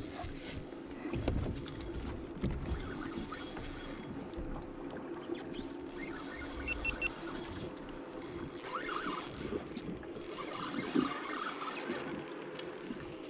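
Spinning reel ticking and whirring as a hooked fish is fought on a bent light jigging rod from a kayak, the reel working against a fish that is taking line on hard runs.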